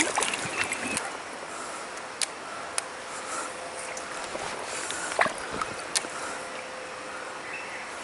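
Shallow stream water running steadily, with a sharp splash at the very start as the fish goes back in. A few short clicks and knocks follow, the two loudest about five and six seconds in.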